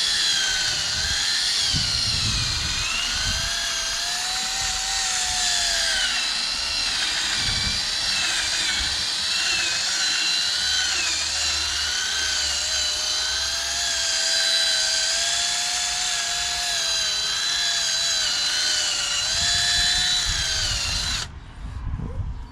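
Power drill spinning a 2000-grit sanding pad, wet-sanding a foggy plastic headlight lens. It is a steady motor whine that wavers in pitch as the load changes, and it stops about a second before the end.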